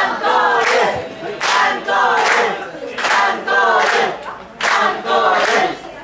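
Live-show audience chanting in unison with rhythmic hand-clapping, the same short chant repeated a little more than once a second: a crowd calling for an encore.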